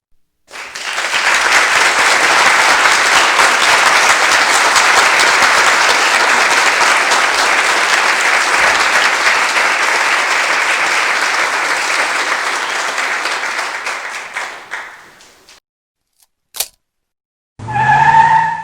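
Stock applause sound effect: a crowd clapping for about fifteen seconds, then fading out. After a short gap comes a single sharp click, and a short pitched sound effect begins near the end.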